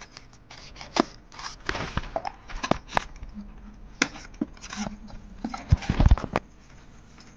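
Knife blade slitting the packing tape along the seam of a cardboard box: a run of short scratching, scraping strokes with sharp clicks, and a few low thumps against the box about six seconds in.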